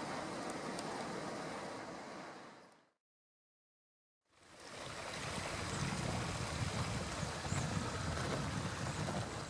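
Steady rushing outdoor noise of a snowy forest. It fades out to complete silence about three seconds in, returns about a second later, and is heavier and deeper in the second half.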